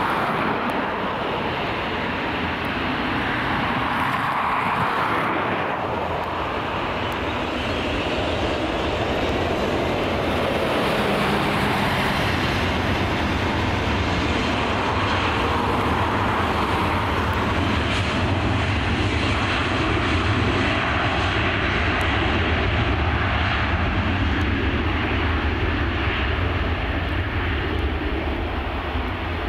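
Finnair Embraer 190's twin turbofan engines at takeoff power through the takeoff roll on a wet runway: steady jet noise, with a deep rumble that grows from about ten seconds in and holds.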